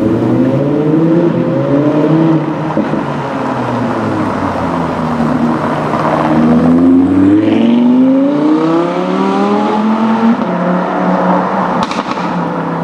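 Audi R8 V10 Plus's 5.2-litre V10 accelerating away. Its note climbs and drops back three times as it shifts up, then settles lower near the end.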